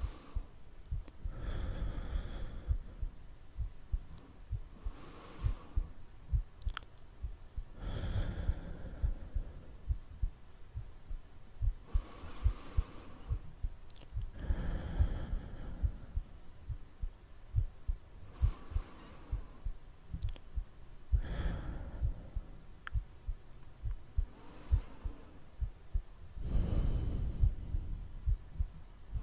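Soundtrack of slow, deep human breaths, one every two to three seconds, over a steady train of low, quick thumps like a heartbeat.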